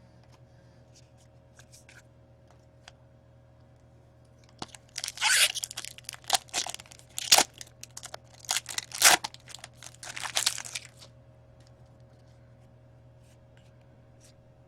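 A hockey card pack's wrapper being torn open and crinkled, with a run of sharp crackles lasting about six seconds from a little over four seconds in. It is preceded by a few faint ticks of handling.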